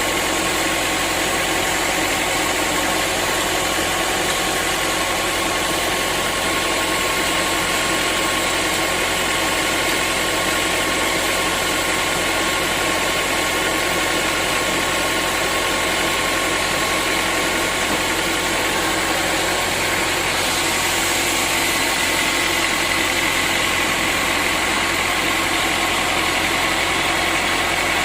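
Sawmill machinery running steadily, a loud continuous mechanical sound with a constant whine; the tone shifts slightly and grows a little brighter about twenty seconds in.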